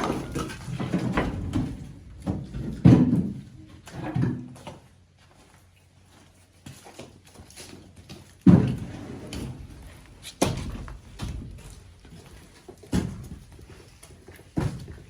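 Heavy wooden thuds of firewood being split and handled, about half a dozen irregular knocks a few seconds apart, with a quiet gap in the middle.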